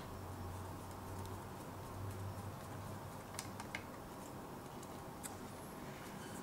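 A few faint, sharp clicks and taps of small screws and a screwdriver as a laptop case is reassembled, over a low steady hum.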